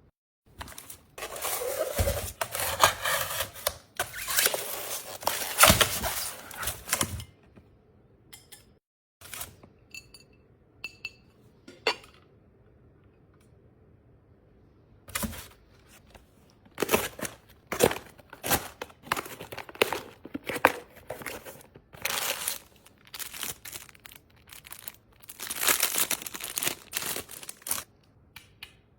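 Plastic packaging crinkling and tearing in bursts, with scattered sharp clicks and taps of items being handled in between.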